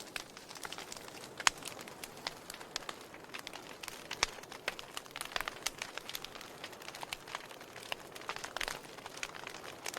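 Wood logs burning in a fireplace, crackling with irregular sharp pops over a soft hiss; the loudest pop comes about a second and a half in.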